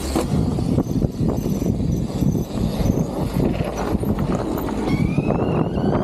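Electric mountain bike ridden fast over a bumpy dirt path: a dense rumble with irregular knocks and rattles from the tyres and frame. About five seconds in, the whine of the CYC X1 Pro Gen 4 mid-drive motor rises steadily in pitch as the bike accelerates.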